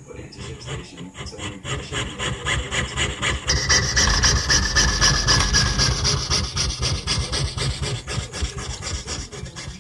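Jeweler's saw blade cutting through a copper-nickel Susan B. Anthony dollar, rasping in rapid, even back-and-forth strokes. It gets louder over the first few seconds and eases off near the end.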